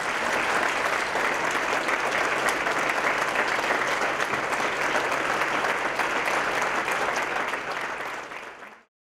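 Large audience applauding: dense, steady clapping that tapers a little near the end and then cuts off abruptly.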